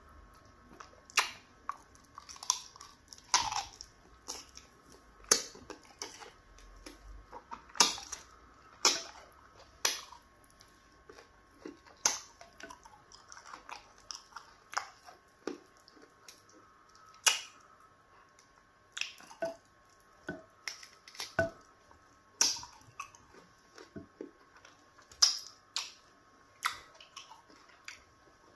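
Close-miked eating sounds: wet smacking, sucking and chewing as meat dipped in slimy okra stew is eaten off the bone by hand. They come as sharp, irregular clicks, about one or two a second.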